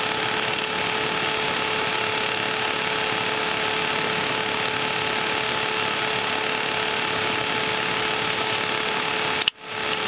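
Steady cockpit noise of an Embraer Legacy 600 business jet taxiing on idling turbofan engines: an even hiss with a steady mid-pitched whine running through it. The sound drops out briefly near the end.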